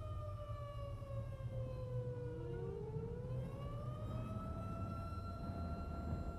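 Outdoor tornado warning siren: its tone slides slowly down over the first few seconds, then a second tone winds up about halfway through and holds steady, over a constant low rumble.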